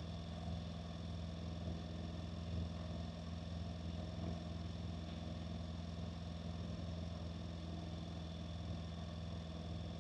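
Honda NC750X's 745 cc parallel-twin engine running at a steady, even pitch while riding, with no gear change or throttle change.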